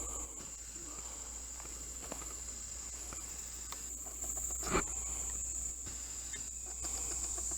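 A steady, high-pitched drone of insects, like crickets, in the woods. Scattered faint ticks, and one louder sharp click near the middle.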